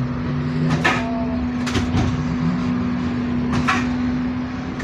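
Interior of a standing ZiU-682G trolleybus: a steady electrical hum from its onboard equipment, with a few sharp clicks and knocks about one, two and nearly four seconds in.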